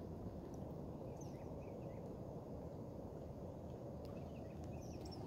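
Quiet outdoor ambience on open water: a steady low rumble with a few faint, short bird chirps scattered through.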